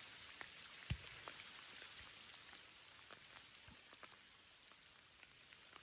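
Light rain: a faint, steady hiss with scattered single drops falling, one louder drop about a second in.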